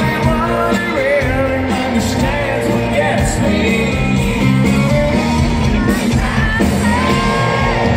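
Live country band playing loudly, with fiddle, electric guitars and drums under a male lead vocal.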